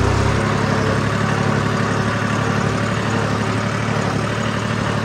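A vehicle engine running at a steady speed, over a steady rushing noise.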